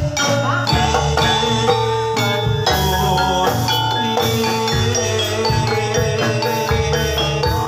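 Live gamelan music for a jathilan (kuda lumping) trance dance: a dense, continuous run of struck metallophone notes over drumming.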